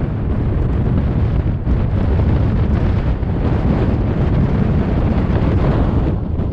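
Wind buffeting the microphone: a loud, steady rumble, heaviest at the low end, with a slight dip near the end.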